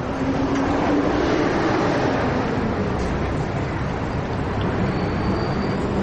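Steady rumble of city street traffic, with a faint engine hum running through it.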